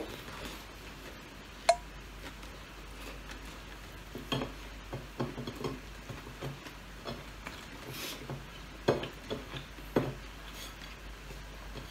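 Close-up eating sounds: chewing and crunching crispy fried chicken wings and picking food off a plate by hand. A single sharp, briefly ringing clink of dishware comes about two seconds in, and a run of crisp crackles and clicks follows in the second half.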